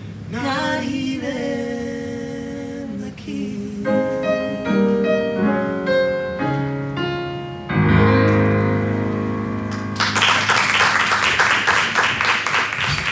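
End of a soul ballad on upright piano and voice: a voice glides up into a held note, the piano plays a short run of single notes, and the song closes on a sustained chord under a held sung note. About ten seconds in, a room full of people starts clapping.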